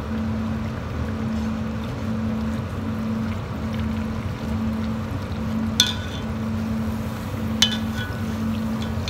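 Corn tortilla deep-frying in hot oil in a cast iron pot: a steady bubbling sizzle over a low hum. Two sharp clicks of metal tongs against the pot in the second half.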